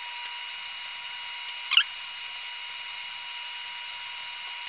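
Copper fitting being twisted on the wire fitting brush of a plumber's brush, cleaning the inside for soldering: a few faint scratches and one short squeaky scrape just under two seconds in. Under it runs a steady hiss with a thin high tone.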